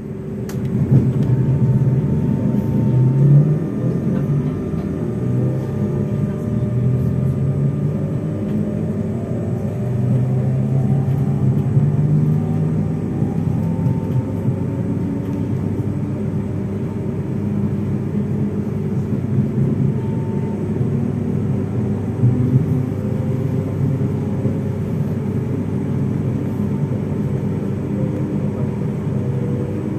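Z2N double-deck electric multiple unit Z 20781 running: a steady electrical hum with whining motor tones, one of which rises for several seconds about a third of the way in.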